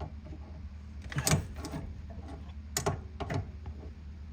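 A few sharp clicks and knocks, four in all, spaced about half a second to a second apart, over a low steady hum.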